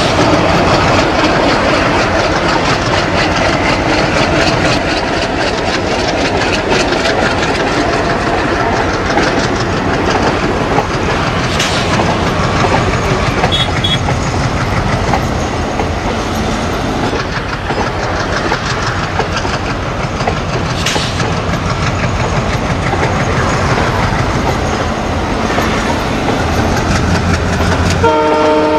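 A pair of WDM-3A ALCO diesel-electric locomotives running together under power, their engines chugging steadily over the noise of the train on the rails. A multi-tone locomotive horn starts right at the end.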